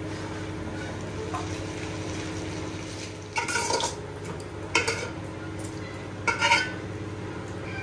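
Water poured into a cooking pot of rice and masala in three short splashes, over a steady low hum.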